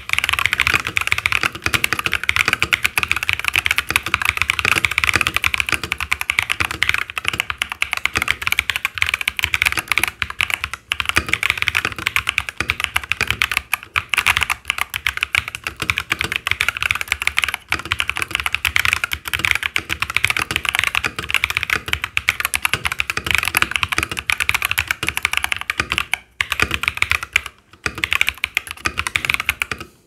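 Fast, continuous typing on an F68 custom mechanical keyboard fitted with stock MMD Panda switches and OEM-profile PBT doubleshot keycaps: a dense run of loud key clacks, made poppy by a tape mod, with a couple of short breaks near the end.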